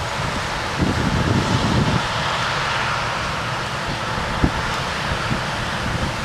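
Combine harvester and a tractor pulling a grain cart running in a corn field, a steady machinery rumble and whir. Wind buffets the microphone, loudest about a second in, with a brief thump a little past the middle.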